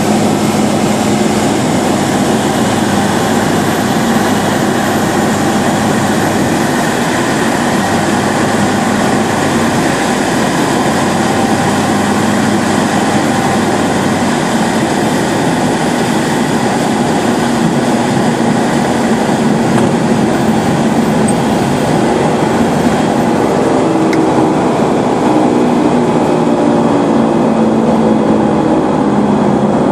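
Cockpit noise of a Roland Z602 light aircraft landing: a steady engine and propeller drone mixed with airflow noise. In the last few seconds a wavering lower note joins in as the aircraft is over the runway.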